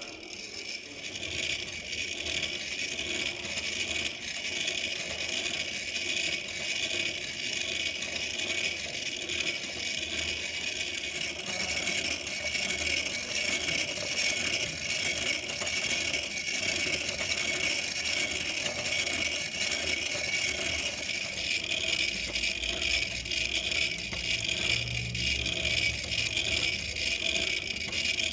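Hand-cranked wooden automaton running: its crank, shaft and cam mechanism clicking and rattling continuously as it is turned, driving the carved figure's fly swatter.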